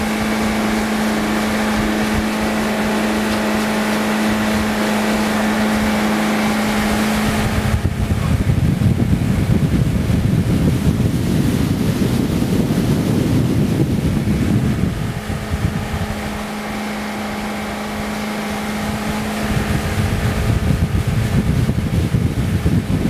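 Tow boat's motor running steadily at speed, a constant hum. Wind buffets the microphone from about eight seconds in, eases around fifteen seconds, and comes back near twenty seconds.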